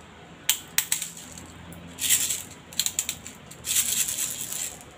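Plastic airsoft BBs being loaded into a WE Glock 18C gas blowback pistol magazine: a few sharp clicks, and two bursts of rattling BBs, one about two seconds in and a longer one near the end.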